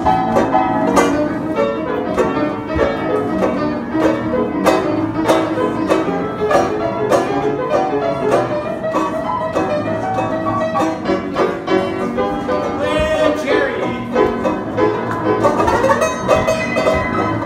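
An old upright piano and a banjo playing an upbeat tune together, the piano struck with a brisk rhythm and the banjo plucked along. The piano is worn enough that a few of its keys don't sound.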